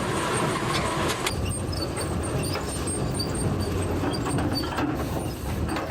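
Heavy sawmill log-handling machinery running with a low rumble and a continual clatter of knocks and clanks. A steady whine sounds over it for about the first second.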